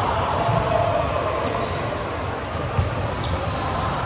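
Sports hall game noise: a ball bouncing and being struck amid players' voices in a large echoing gym, with one sharp impact nearly three seconds in.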